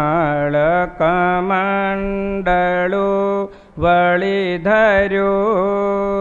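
A man chanting a devotional verse in a slow, melodic sing-song, holding long notes and wavering around them, with short breaks for breath between phrases.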